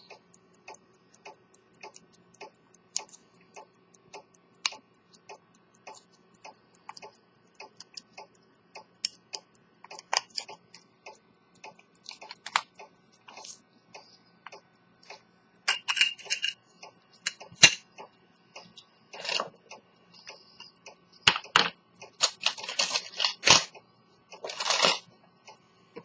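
Swiss quarter-repeater pocket watch ticking steadily and rapidly, its lever escapement running. From about ten seconds in, louder irregular knocks and rustles of gloved hands handling and opening the watch case cover the ticking.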